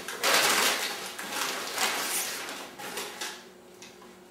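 Sheets of packing paper rustling and crinkling as they are folded around and into a metal pot, in several bursts over the first three seconds, then quieter.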